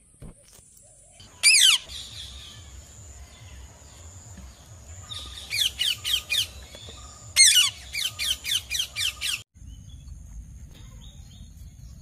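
Indian ringneck parakeets giving shrill, downward-sliding screeches: one about a second and a half in, then rapid runs of repeated screeches from about five seconds in until about nine seconds in.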